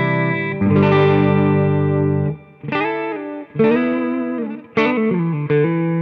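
Electric guitar played through a BluGuitar Amp 1 on a clean preset without the amp's extra reverb, shaped by a Line 6 HX Effects unit. Chords are strummed and left to ring, a new chord coming about every second, with short gaps between some of them and a slight wavering in pitch in the middle chords.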